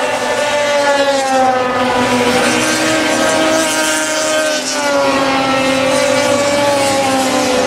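Racing snowmobile engines running at high revs, several sleds at once. Their pitch slides down and back up as sleds pass by, twice over.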